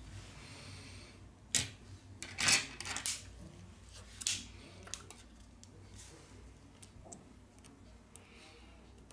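A few sharp clicks and taps, the loudest from about a second and a half to three seconds in and another just after four seconds, as a Huawei P30 smartphone's logic board and small parts are handled and set down on a hard tabletop, with soft handling rustle between.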